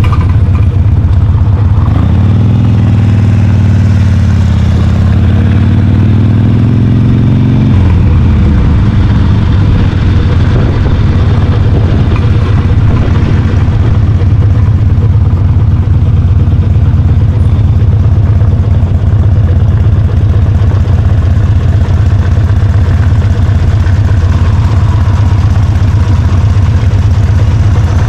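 Kawasaki Ninja 400's parallel-twin engine running under way. Its note climbs a few seconds in and drops sharply about eight seconds in, then holds steady.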